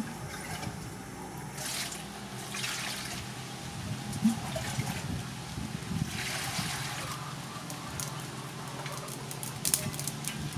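Water splashing and trickling in an aluminium basin as a raw cow heart is rinsed by hand, with water poured over it from a cup several times. A few sharp clicks near the end.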